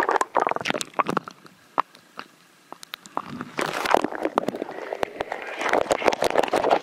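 Seawater splashing and sloshing around a camera being dunked under and lifted out, with muffled gurgling and many sharp clicks and knocks against the microphone. A quieter stretch comes about a second and a half in, then the splashing picks up again.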